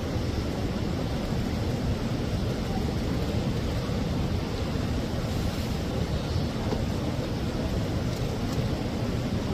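Steady low rumble and hiss of background noise, even in level throughout, with no distinct chewing or other events standing out.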